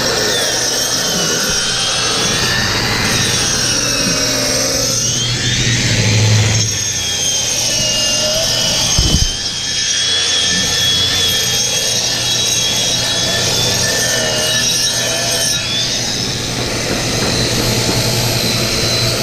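Right-angle grinder with a cup wheel grinding a surface under a vacuum shroud, with a steady hum beneath. The motor's high whine drifts up and down as the wheel is pressed into the work. A short knock about nine seconds in.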